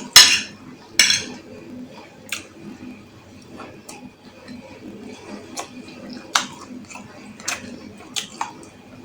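Cutlery clinking and scraping against a bowl while eating: two louder scrapes at the start, then sharp single clinks every second or so.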